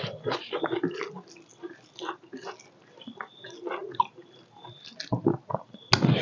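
Close-miked chewing and biting of pork leg: a run of irregular short, smacking mouth clicks. A louder, rougher noise starts near the end.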